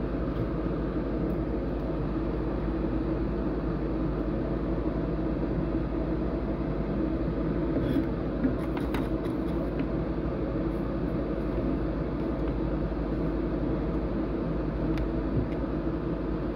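Steady low mechanical hum, with a few faint clicks about eight to nine seconds in.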